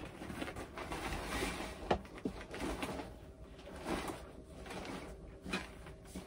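Hands rummaging in a large shoulder bag: soft rustling of clothes and packed items, with a few small knocks, the sharpest about two seconds in.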